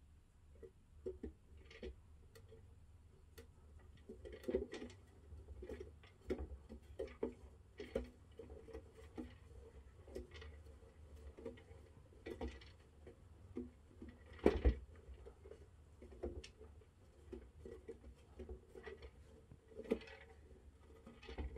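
Chinchilla moving and running in an exercise wheel: irregular clicks, taps and knocks from its feet and the turning wheel, with one louder knock about two-thirds of the way through.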